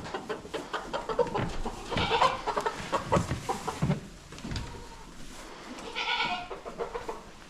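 Chickens squawking and flapping as they are caught and handled, with two loud squawks, about two seconds in and about six seconds in, and rustling and knocking in between.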